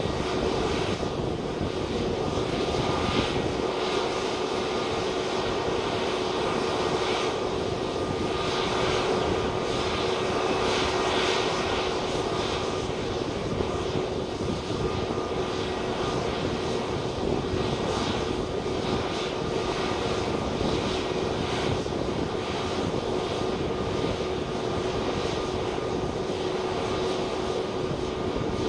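Airbus A320neo's Pratt & Whitney PW1100G geared turbofan engines running at taxi power, a steady hum with a whine that holds on one pitch.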